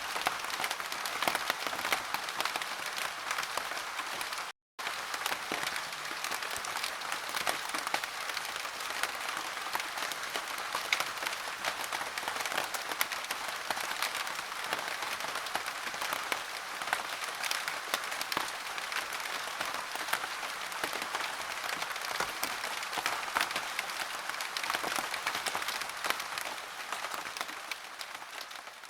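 Heavy rain falling, a dense steady patter of many drops. It cuts out for a moment about four and a half seconds in and begins to fade away near the end.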